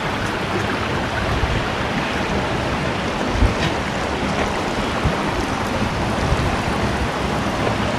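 Shallow creek water running over a rocky bed, a steady rushing, with wind buffeting the microphone in low rumbles.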